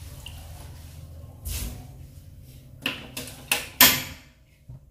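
Water poured from a cup into a wok of chicken pieces to boil them, with a faint splashing run. About a second and a half in there is a thump, then four sharp knocks in quick succession near the end, the last the loudest.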